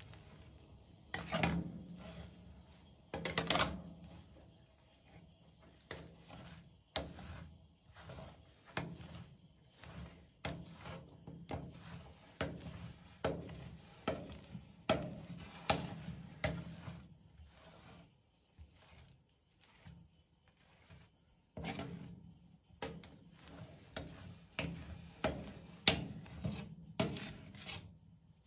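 Metal spatulas scraping and smoothing freezing ice cream base across a stainless steel cold plate, in repeated strokes about once a second, with a few sharper clicks of blade on metal.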